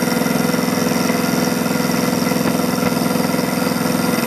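Mini mill spindle running with a high-speed steel end mill taking a light cut along a metal rod: a steady machine hum with crackling noise in the recording. The hum drops away near the end.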